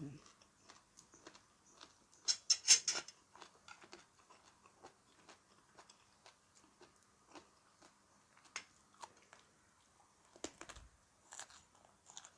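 A person chewing crunchy food close to the microphone: a burst of crisp crunching about two seconds in, then scattered smaller crunches and mouth clicks.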